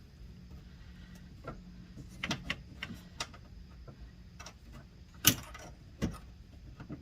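Scattered small clicks and light knocks of metal parts being handled as a retaining clip is fitted to a 1979 Pontiac Trans Am ratchet shifter. The sharpest knock comes about five seconds in.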